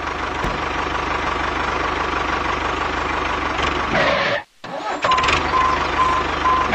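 Tractor engine running steadily. It cuts out sharply about four and a half seconds in, then starts up and runs again.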